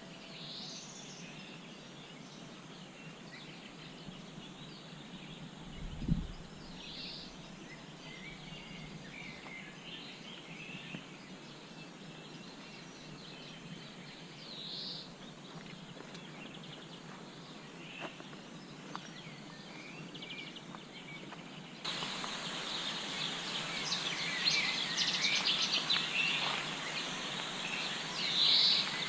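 Several small birds singing and calling in short, scattered phrases over a steady background hiss, with a single low thump about six seconds in. Near the end the whole sound suddenly gets louder and the birdsong becomes denser.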